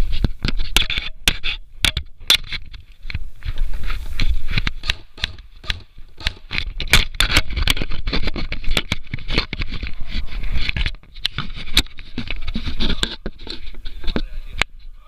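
Scraping and rustling of an airsoft player moving with gear close to the microphone, over a low rumble, with many sharp, irregular clicks throughout.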